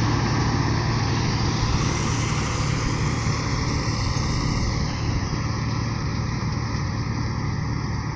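Combine harvester running steadily under load, a low engine hum with the broad rushing noise of the cutting and threshing machinery, easing slightly about five seconds in.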